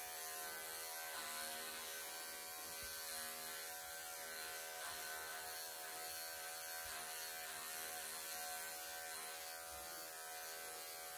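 Wahl professional electric pet clippers running steadily with a constant electric hum while trimming the long bib fur on a cat's chest.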